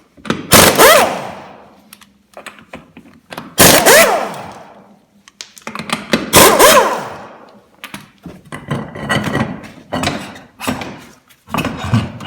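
Impact wrench loosening the wheel fasteners on a riding mower's wheel. It runs in three short bursts, each winding down after the trigger is let go, followed by lighter metal clatter as the parts are handled.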